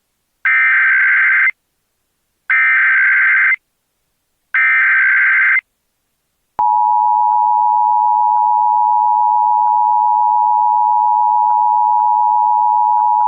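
Emergency Alert System SAME header: three one-second bursts of warbling data tones, two seconds apart. After a pause, a steady alert tone starts about six and a half seconds in and holds.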